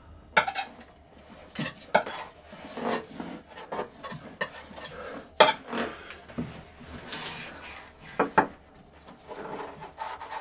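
Irregular clatters, knocks and scrapes of hand work in a fibreglass hull, as a wooden board and tools are shifted and pressed against it to weigh down glued backing plates. The loudest knock comes about five seconds in, with another sharp pair near eight seconds.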